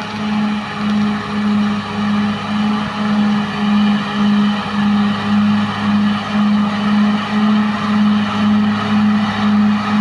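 Caterpillar D6R XL bulldozer's diesel engine running under load as it pushes soil with its blade: a steady drone that throbs about three times a second.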